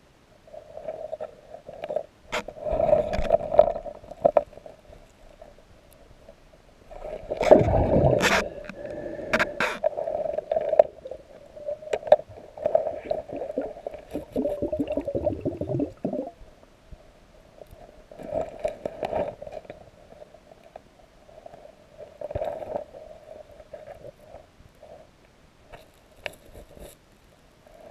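Muffled underwater scraping, knocking and gurgling as a gloved hand moves rocks and gravel on a creek bed, in irregular spells with a few sharp clicks, over a steady hum.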